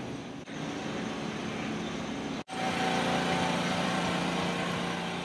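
Loud, constant thrum of drying fans and machinery running along the street. After a brief break about halfway in, a steady drone with several held tones.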